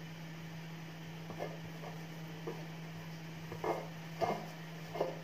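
Shredded kunafa (kataifi) dough being handled by hand, a few soft rustles as it is scooped from a ceramic bowl and spread, growing more frequent and louder in the second half, over a steady low hum.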